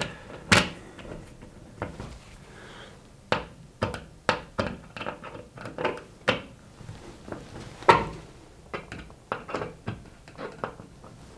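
Hand screwdriver driving the fixing screws of a wall socket faceplate into place: a string of small, irregular clicks and scrapes as the tip works in the screw heads, with one louder knock about eight seconds in.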